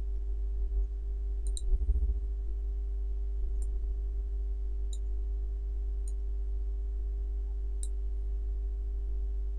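Computer mouse clicking five times, single sharp clicks a second or two apart, over a steady low electrical hum. A brief low bump comes about two seconds in.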